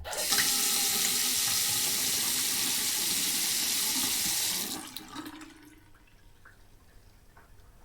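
Sink tap running at full flow in a steady hiss of water, then stopping about four and a half seconds in. A few faint ticks follow.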